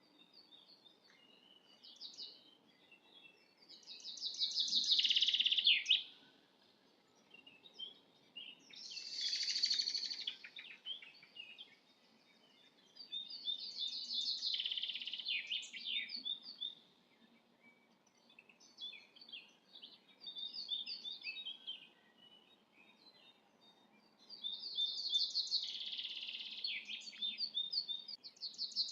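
Songbirds singing: loud, rapid trilled phrases of a second or two, repeated every few seconds, with fainter chirps in between.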